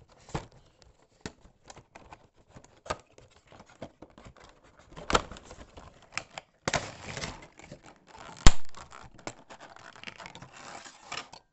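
A Funko Pop cardboard window box and its plastic packaging being opened and handled to take the figure out: scattered irregular clicks, scratches and rustles, with one loud sharp knock about three-quarters of the way through.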